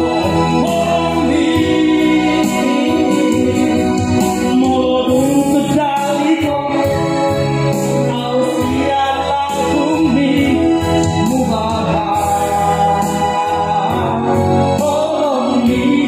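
A man singing a Batak song into a microphone over electronic keyboard backing music.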